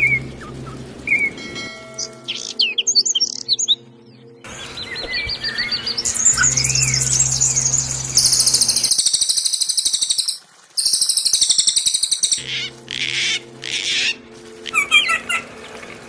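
Recorded songs of small songbirds spliced together, cutting abruptly from one to the next. Scattered chirps and whistles give way to a long, very fast high-pitched trill about six seconds in, broken by a short gap near the middle, then quick repeated chirps near the end, with a steady low hum underneath at times.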